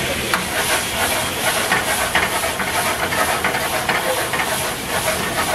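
Paneer pepper fry sizzling in a pan over a high gas flame, a steady loud hiss, with a ladle and spatula clinking and scraping against the pan in quick repeated strokes as it is stirred.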